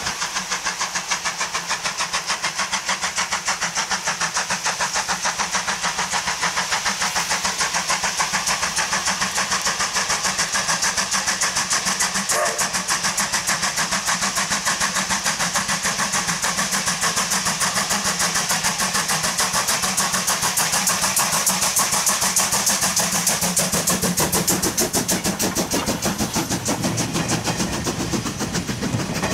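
Steam locomotive C12 66's exhaust blasts in a fast, steady rhythm as it works hard up a steep grade, a powerful chuffing from the chimney. Near the end the coaches roll past with wheel noise on the rails.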